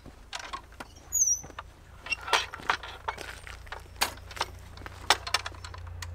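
Footsteps approaching, then irregular knocks and clicks of a wooden field gate being handled, unlatched and pushed open. A brief high chirp sounds about a second in.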